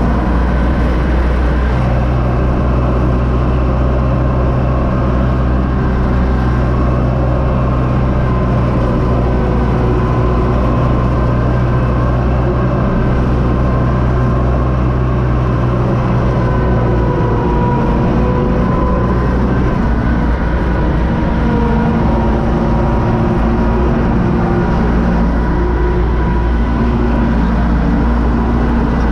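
UTB Universal 650 tractor's four-cylinder diesel engine running steadily while driving, heard from inside the cab, with a steady whine above the engine note.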